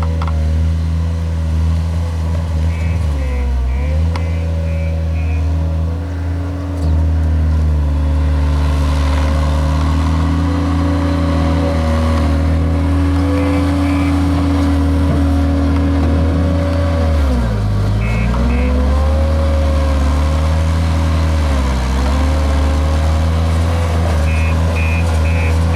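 JCB Robot skid steer loader's engine running hard while working, its pitch dipping briefly several times as it is loaded down. Bursts of short high beeps come and go over it.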